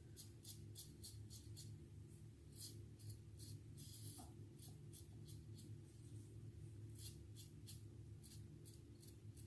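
Feather Artist Club SS single-edge razor with a Feather Professional Super blade scraping over lathered stubble in quick, faint buffing strokes, several in a row about three a second, with a pause in the middle. These are the close-up touch-up passes at the end of a shave.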